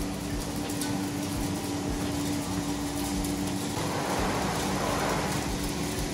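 Olive mill machinery for removing leaves and branches, running with a steady motor hum and a constant tone, under a rushing noise. The rushing swells briefly about four seconds in.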